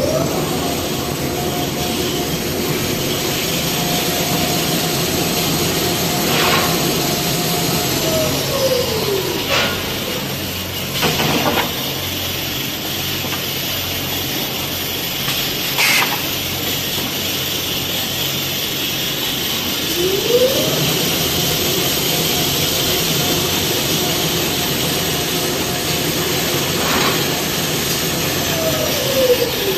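Toilet paper production line machinery running, a steady mechanical hiss and rumble. Twice a motor whine rises, holds for about eight seconds and falls away, and a few sharp clunks sound between.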